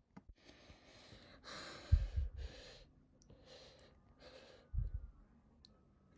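A person breathing in and out in sighing breaths, hiccuping twice about three seconds apart. Each hiccup is a short, low thump that cuts into a breath, and the hiccups are the loudest sounds.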